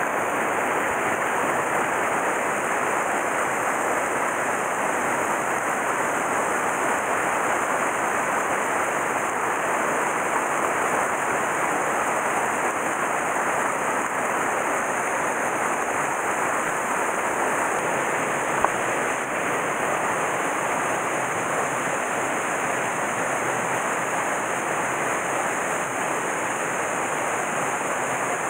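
Steady rush of a mountain stream's water tumbling over rocks, with a single brief click about two-thirds of the way through.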